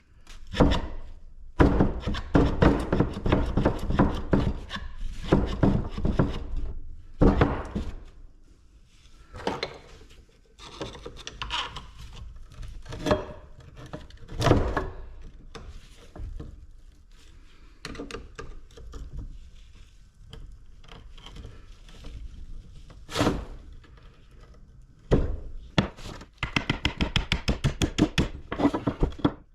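Repeated knocks and strikes of tools on a scrap compressor being broken apart. Dense clusters of hits come at first, then scattered single knocks, then a fast run of strikes near the end.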